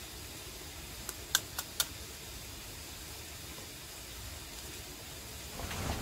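Four quick, sharp clicks a little over a second in, over a steady low hiss.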